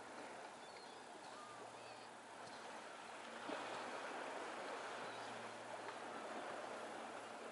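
Seaside outdoor ambience: a steady rush of wind and waves, with a few faint bird chirps. A light knock comes about three and a half seconds in, after which the rush grows a little louder.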